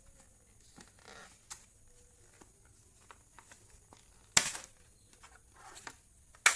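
Small clicks and taps of laptop parts and hand tools being handled, with a soft rustle about a second in and two sharp clicks, one a little past the middle and one at the end.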